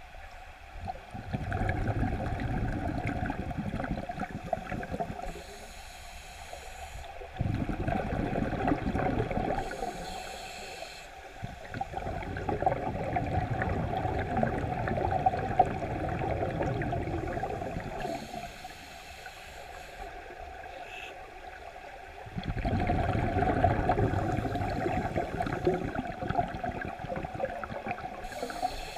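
Scuba regulator breathing heard underwater: several-second rushes of exhaled bubbles alternate with shorter, quieter stretches carrying a thin high hiss, about four breaths in all.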